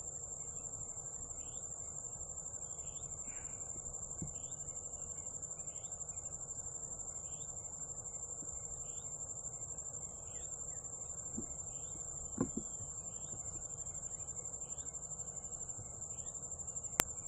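Crickets trilling steadily in a high, pulsing tone, with short chirps repeating a little under once a second. A few faint ticks are heard, then a sharp click just before the end.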